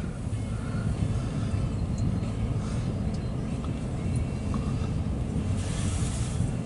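Steady low idling engine rumble heard from inside a truck cab, with a faint hiss of rain.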